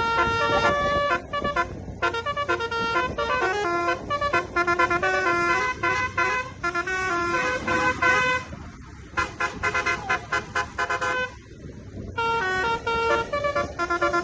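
Tour bus's Basuri telolet musical horn playing a tune: a quick run of steady horn notes stepping up and down in pitch, broken by two short pauses about eight and eleven seconds in.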